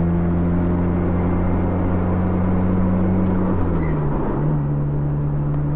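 Chevrolet Cobalt's engine running steadily under way, heard from inside the cabin over road noise. About four seconds in the driver shifts the manual gearbox up a gear: the engine note drops away briefly and settles at a lower pitch.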